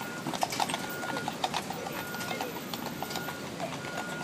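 Hooves of a carriage horse clopping on the paved street in an uneven run of sharp clacks, over steady street noise.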